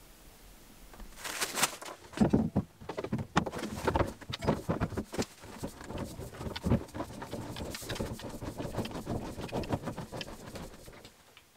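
Large plastic water-filter housing being handled and screwed onto its head by hand: a dense run of clicks, knocks and scraping of plastic on plastic that starts about a second in and stops just before the end.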